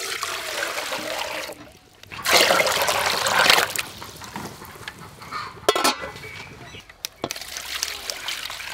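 Water poured into a large aluminium cooking pot in two pours, the second louder, starting about two seconds in. Then a couple of sharp metal clinks, and near the end water splashing as a fish is rinsed in a metal basin.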